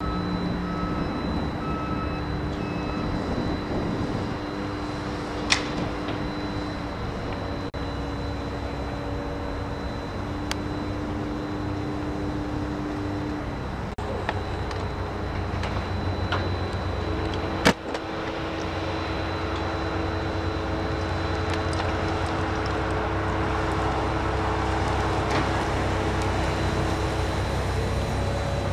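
Street traffic: vehicle engines running and cars passing, with a low rumble building over the second half. Two sharp clicks cut through, one about five seconds in and a louder one a little past halfway.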